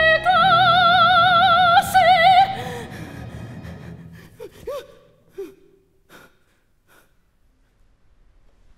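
A female solo voice holds the final sung word "classe" with wide vibrato over the orchestra, ending about two and a half seconds in as the orchestra dies away. A few short gasp-like vocal sounds follow around four to five seconds in, then near quiet with a couple of faint knocks.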